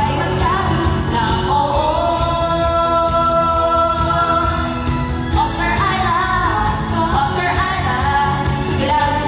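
Several voices singing a Filipino song together into microphones over amplified backing music, with one long held note from about two to four seconds in.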